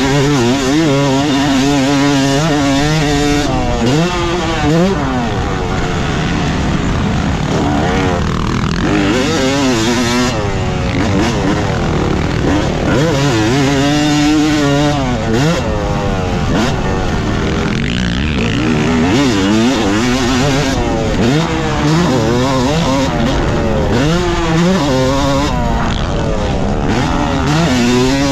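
Yamaha YZ250 single-cylinder two-stroke motocross engine being ridden hard. It revs up and drops back over and over, its pitch rising and falling every couple of seconds, over a steady rush of noise.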